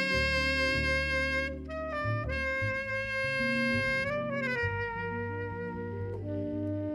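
Instrumental background music: a solo wind instrument holds long, sustained notes, bending the pitch briefly about four seconds in, over a low bass accompaniment.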